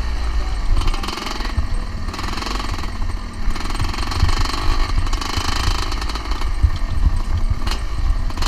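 1981 Yamaha YZ250's two-stroke single-cylinder engine running at low revs with a fast, even stream of firing pulses as the motocross bike rolls slowly along.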